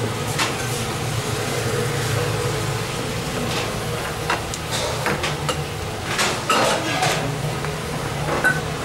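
Scattered clinks and clatters of metal pans, trays and dishes at a restaurant buffet and open kitchen, some ringing briefly, over a steady low hum.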